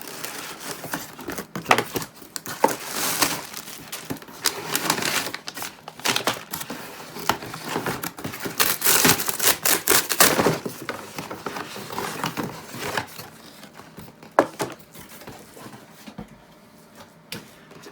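Packaging from a cardboard parcel being pulled out and unwrapped by hand: irregular crinkling and crumpling with some tearing, busiest around the middle and quieter near the end.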